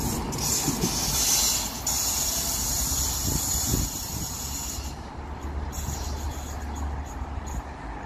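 Lille tram (a Breda-built car) running away along a curving track, its wheels giving a high hiss on the rails that fades about five seconds in, leaving a low rumble.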